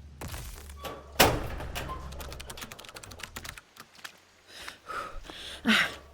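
Rapid clicking like typing on a computer keyboard, from hacking a security gate's lock, with one heavy thunk about a second in, over a low steady rumble.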